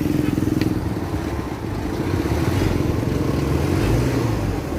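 Mitsubishi engine running at a fast idle, a steady rapid chug whose pitch eases down slightly in the first second. The engine is being checked for a knock and is suspected of low compression.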